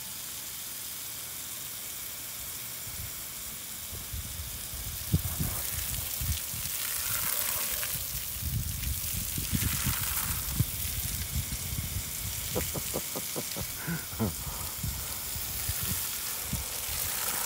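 Water from a garden hose spray nozzle hissing steadily as it hits a wet shag rug, with irregular low thumps and spatters joining in from about four seconds in.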